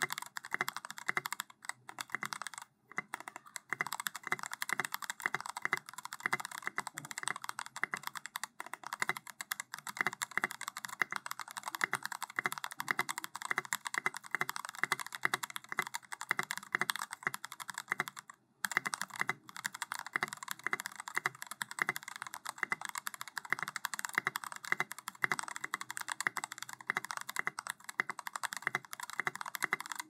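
Steady, fast typing on an Ikki Aurora 68 mechanical keyboard fitted with lubed JWICK Aloe tactile switches, an FR4 plate and KAT Alpha keycaps: a rapid run of key presses, with two short pauses, about three seconds in and about eighteen seconds in.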